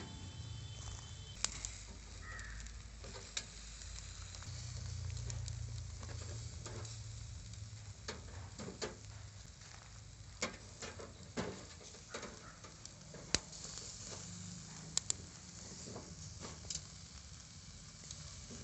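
Marinated chicken drumsticks sizzling faintly on a wire grill over a charcoal fire. Scattered sharp clicks and pops run through it, with metal tongs clicking against the grate as the pieces are turned.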